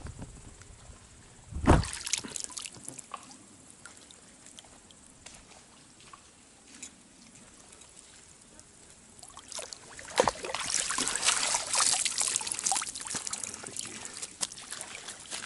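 A single thump about two seconds in, then after a quiet stretch water splashing and trickling for the last several seconds as a fish keepnet is hauled up out of the river.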